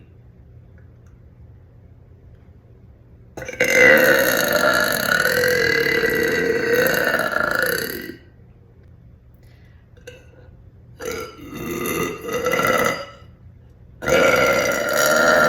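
A woman's deliberate, loud burps, three in a row: a long drawn-out one of about four and a half seconds, a shorter one a few seconds later that breaks briefly in the middle, and a third starting near the end.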